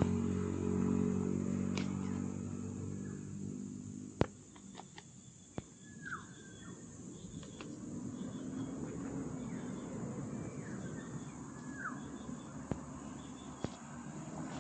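A motor vehicle's engine running and fading away over the first few seconds, then quiet outdoor ambience with a few short downward-sliding bird chirps and several sharp clicks.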